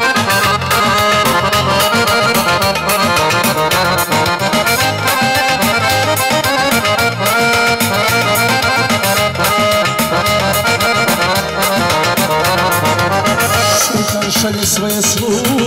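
Live band's instrumental break in a Serbian folk song: an accordion-voiced melody over keyboard backing, with a steady beat and bass.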